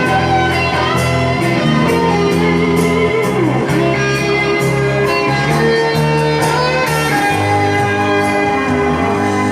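Karaoke backing track of an enka ballad playing its instrumental interlude: a guitar-led melody with bent notes over a steady bass accompaniment, no singing.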